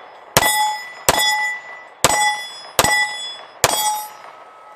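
Five shots from a Diamondback DB9 Gen 4 9mm pocket pistol, a little under a second apart. Each shot is followed by the ringing of a steel target being hit.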